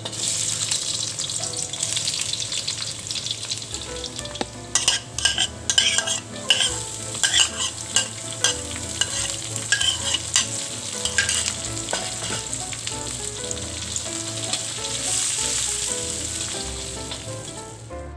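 Sliced garlic and shallots sizzling in hot oil in an aluminium wok, starting the moment they go in, with spring onions added. From about four to eleven seconds in, a utensil clicks and scrapes against the metal as the pan is stirred, and the sizzling swells again near the end.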